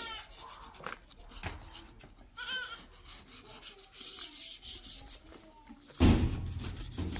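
Light scraping strokes of a small hand tool worked along a brick wall, with a goat bleating briefly about two and a half seconds in. A loud burst of low rumbling noise comes in about six seconds in.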